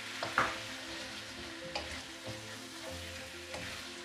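Chicken in masala sizzling in a non-stick kadai with a splash of water just added, while a wooden spatula stirs it. Several sharper scrapes of the spatula against the pan sound over a steady sizzle, the loudest about half a second in.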